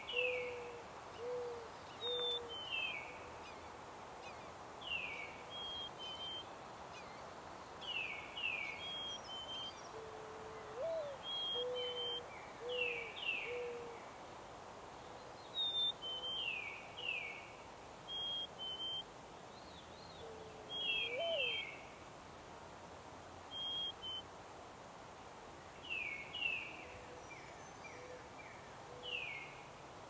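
Mourning dove singing its cooing song three times, about ten seconds apart: each phrase is a rising-then-falling coo followed by three lower, even coos. Throughout, another songbird gives repeated high down-slurred whistles, often in pairs.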